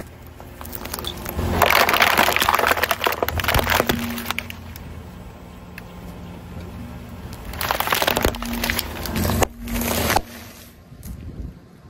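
Car tyre rolling over and crushing plastic packaging and snacks on asphalt: crackling and crunching in several bouts, a long one in the first few seconds and shorter ones near the end.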